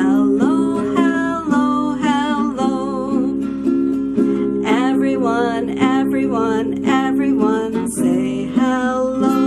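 A woman singing a children's hello song while strumming chords on a guitar.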